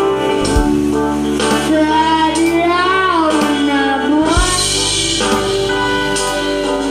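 Karaoke music: a backing track with drums and guitar under a singing voice holding long notes that slide up and down.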